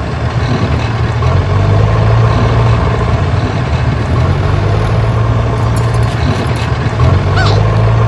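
Tractor engine running steadily with an even low drone.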